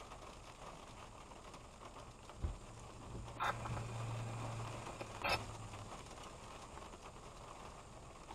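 Car windshield wipers making one sweep in the rain: a low motor hum lasting about three seconds, with two sharp clicks a couple of seconds apart, over a steady patter of rain on the car.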